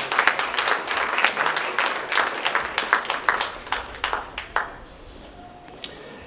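Audience applauding, the clapping thinning out and dying away a little over four seconds in.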